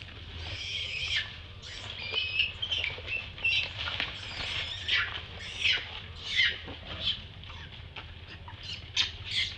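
Tiny infant long-tailed macaque screaming in distress: a rapid series of shrill, high-pitched cries, one or two a second, some with a wavering pitch.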